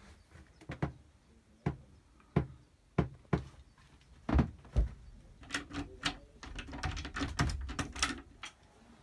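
Scattered knocks and thumps from someone moving about the wood-panelled cabin of a boat, with a quick run of clicking and knocking between about five and eight seconds in.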